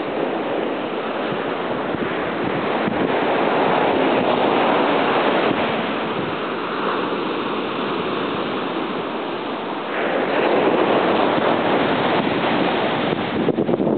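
Ocean surf washing onto a beach as a continuous rushing noise, with wind on the microphone. It swells a few seconds in and jumps louder suddenly about ten seconds in.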